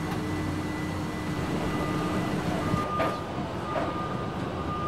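Steady low hum with a whine from a parked McDonnell Douglas MD-11 airliner, heard from inside the cabin. About three seconds in, the sound changes abruptly to a quieter hum with a thinner whine that comes and goes.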